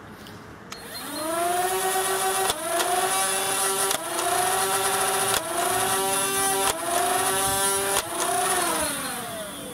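Dart Zone Thunderbolt flywheel foam-dart blaster spinning up with a rising motor whine, then firing five darts about one and a half seconds apart. Each shot is a sharp click with a brief dip in the motor pitch that recovers. Near the end the flywheels spin down with a falling whine.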